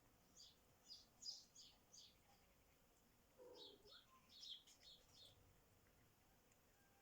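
Faint birdsong: quick, short, high chirps in two bursts, the second starting about halfway through. A brief lower sound comes at the start of the second burst.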